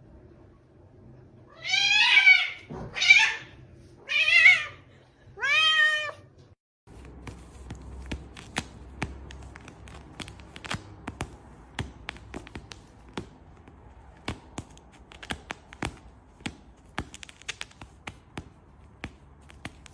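A domestic cat meowing loudly four times in a row, each call rising and then falling in pitch. After a brief break, a long run of irregular light clicks and knocks follows.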